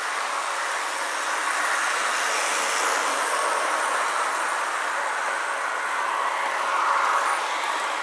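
Märklin model trains running on metal track: a steady rolling, whirring rattle of wheels and motors, a little louder about seven seconds in as a train passes close.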